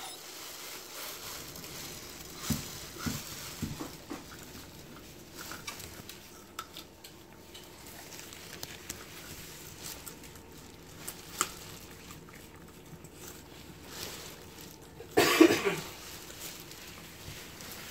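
A small dog nosing and biting at a watermelon in a thin plastic bag: plastic rustling with scattered light clicks and taps of teeth on the rind. About fifteen seconds in comes a louder noisy burst lasting under a second, the loudest sound here.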